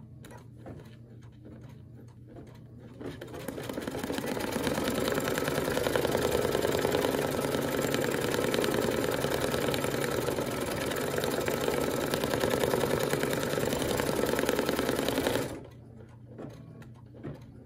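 Brother Luminaire embroidery machine stitching out a design, its needle running fast and steadily. It comes up to speed from about three seconds in and stops suddenly a couple of seconds before the end.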